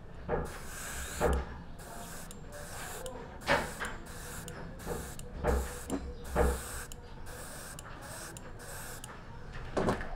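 Gravity-feed airbrush spraying paint in a series of short hissing bursts as the trigger is pressed and released, stopping about nine seconds in. A few dull knocks come between the bursts.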